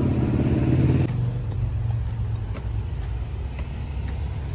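Low, steady rumble of a car, with a few faint clicks; the sound changes abruptly about a second in.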